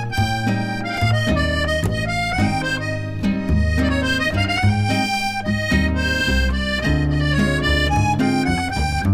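Instrumental background music with a reedy melody over guitar and a steady bass line.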